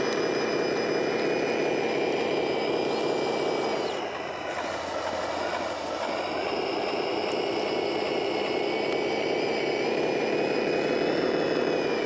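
Electric worm-gear motors of a 3D-printed 1:14 scale RC bulldozer whining steadily as they drive the tracks. Between about four and six seconds in the sound dips and the whine slides down and back up as the machine changes direction, then runs steady again.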